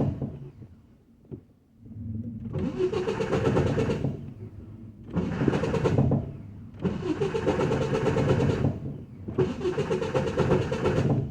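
Truck starter cranking the engine in four separate tries of about two seconds each with a grinding sound, and the engine does not start. The owner says the engine is flooded, and the grinding is put down to a starter that is not aligned right.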